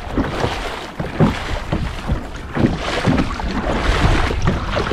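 Choppy sea slapping and splashing irregularly against a kayak's hull, with wind buffeting the microphone.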